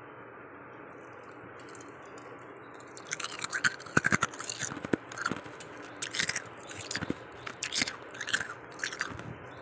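Someone chewing freezer frost. After about three seconds of steady faint hiss come irregular crisp crunches, about a dozen of them.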